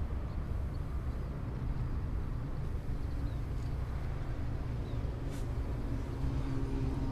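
Steady low outdoor rumble with no distinct events, and a faint steady hum coming in near the end.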